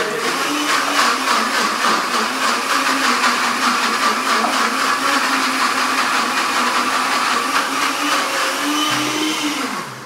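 Countertop blender motor running steadily while it chops raw carrot pieces dry, with no liquid, grating them down; the jar is tilted and shaken to keep the carrot from jamming under the blades. Near the end the motor's pitch lifts briefly, then winds down as it is switched off.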